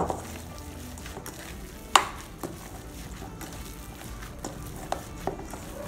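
Hands in thin plastic gloves mixing seasoned ground beef in a stainless-steel bowl: soft squishing of the meat, with sharp knocks against the bowl at the start and about two seconds in, and a few lighter ones near the end.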